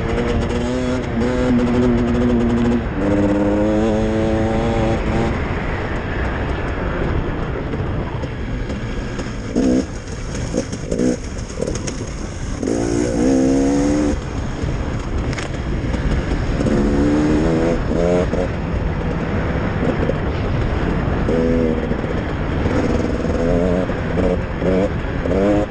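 Off-road dirt bike engine being ridden hard, its pitch climbing and falling again and again as the throttle opens and closes through the gears, with brief drops where the throttle is shut off.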